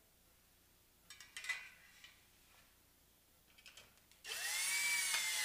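Metal clinking and rattling as a brass door edge guard is fitted over the door edge, then a cordless drill/driver runs for about a second and a half near the end, driving a screw through the guard into the door. Its motor whine rises as it starts and drops as it stops.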